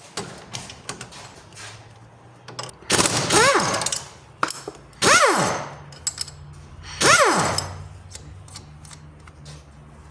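Three short bursts of a pneumatic impact wrench about two seconds apart, each a hammering rattle with a whine that rises and falls, as the sway bar link's nuts are worked.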